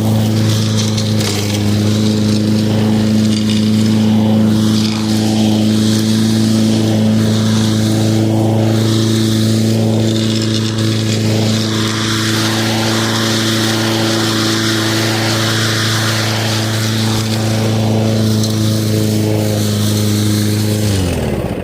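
Lawn mower running at a steady, unchanging pitch, then shut off near the end, its pitch dropping quickly as it winds down to a stop.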